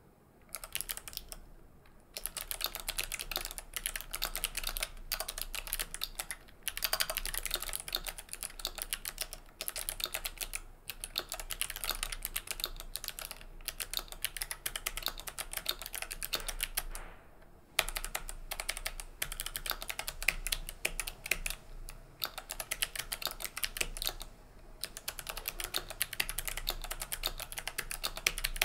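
Fast typing on a GMKK Pro mechanical keyboard with GMK Maestro keycaps in its unmodded state: rapid runs of keystroke clacks broken by short pauses every few seconds.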